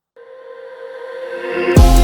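Electronic music starting from silence: sustained synthesizer chords swell in, then a deep bass drum hit lands near the end.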